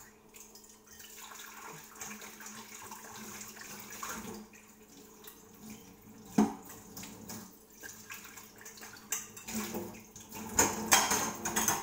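Kitchen tap running into a sink while used cooking utensils are washed, with a single sharp knock about six and a half seconds in and dishes clattering near the end.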